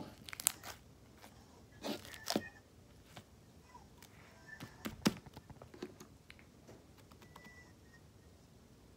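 Blue slime being squeezed, stretched and pressed by hand on a desk: scattered soft squelches and clicks, busiest in the first six seconds and sparser after.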